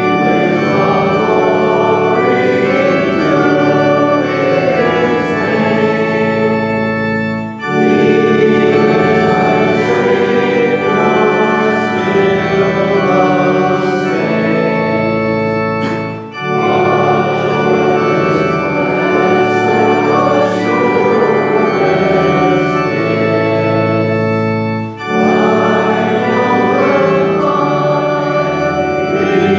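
Organ playing sustained chords in long phrases, with a brief break between phrases about every eight seconds.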